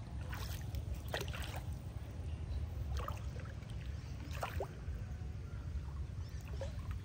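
Water sloshing and splashing in short, irregular bursts over a steady low rumble, as a fishing net is worked in shallow water.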